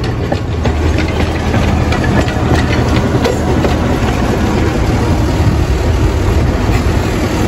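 Diesel engine of the Botchan Ressha locomotive, a diesel built to look like a small steam engine, running steadily at low revs as the locomotive moves slowly along the track.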